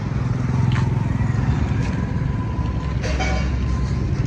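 An engine running steadily with a low, fast, even throb.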